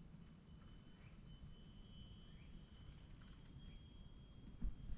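Faint, steady chirring of insects, with a low rumble underneath and a dull thump near the end.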